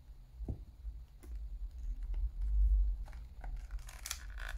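Small cardboard RAM box being handled: a few light taps and scrapes, then, about four seconds in, a brief papery tearing rustle as its sealed flap is pulled open.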